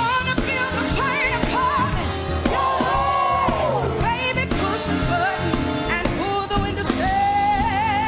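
A woman's powerful solo voice singing a show tune over band accompaniment. She slides down through a phrase about three seconds in and holds a long note with vibrato near the end.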